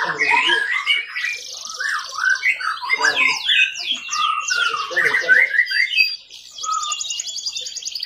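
Domestic canary singing a long, fast song of rolling trills and rising and falling whistled notes, with a brief break about six seconds in.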